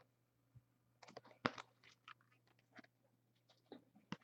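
Faint handling of trading cards and their packaging: scattered small clicks, crinkles and slides, the loudest about one and a half seconds in, over a faint steady low hum.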